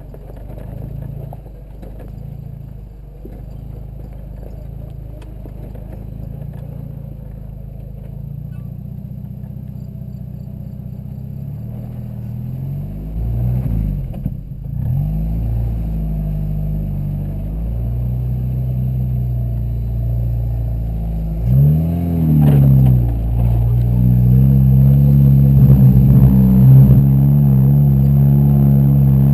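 A 1992 Jeep Wrangler YJ's 2.5-litre four-cylinder engine, heard from inside the cab while driving off-road. The revs rise and fall with the throttle, swinging quickly a few times midway. It gets louder and holds a higher, steady pitch over the last few seconds.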